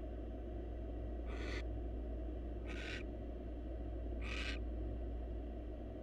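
Barn owl giving short, raspy hissing calls, three times about a second and a half apart. A steady low hum runs underneath.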